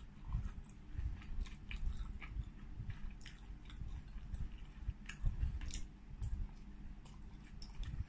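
Close-miked chewing of shabu, sliced pork in broth, with wet mouth sounds and scattered short clicks.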